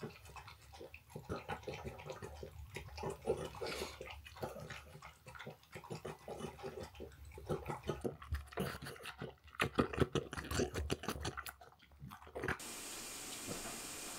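French bulldog eating stewed homemade food from a ceramic bowl: quick wet lapping, smacking and chewing, with short pauses. Near the end the sound cuts abruptly to a steady hiss.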